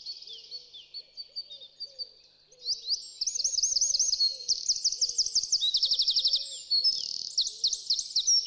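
Songbirds singing: quick, repeated high chirps and trills that grow louder and denser about three seconds in, with a faint low hooting note repeated about twice a second underneath.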